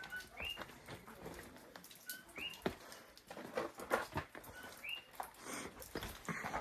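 A small animal's high chirp call repeated three times, about two and a half seconds apart, sometimes led by a short lower note, over scattered footsteps and knocks on rock.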